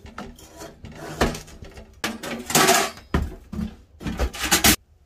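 Winnerwell Nomad View stainless steel wood stove being handled and set down on paving bricks: a string of metal clanks, knocks and short scrapes.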